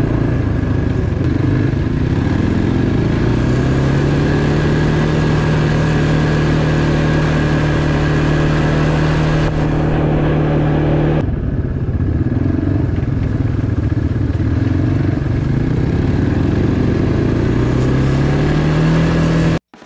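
A motor engine running steadily at speed, its pitch easing off about eleven seconds in and climbing again near the end before the sound cuts off abruptly.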